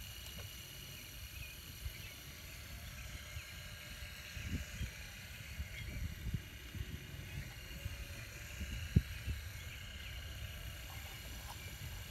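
Radio-controlled Cat excavator working a dig-and-dump cycle: a steady high whine from its drive under a low rumble, with scattered knocks and clatters as the bucket digs and dirt drops into the haul truck's bed. The sharpest knock comes about nine seconds in.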